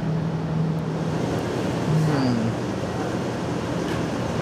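City street ambience: steady road traffic noise with a low steady hum that fades out about a second in.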